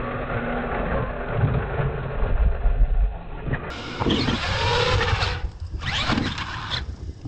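R/C monster truck's motors whining, the pitch rising and falling as the throttle is worked, with low knocks as the truck climbs and drops off the ramps.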